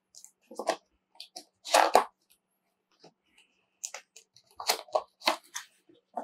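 Cardboard box being opened by hand: flaps and tuck tabs scraping and crackling in a run of short bursts, the loudest about two seconds in.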